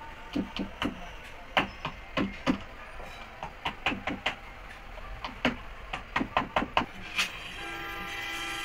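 Sharp, irregular hammer knocks, two or three a second, on the hard plastic case and lid of an old Exide lead-acid truck battery as the lid is worked loose. Near the end the knocking stops and a steady sustained tone comes in.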